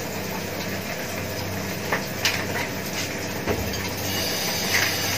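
Ceramic bowls clinking and knocking as they are handled in a stainless steel kitchen sink, a handful of short knocks in the middle, over a steady low hum and hiss.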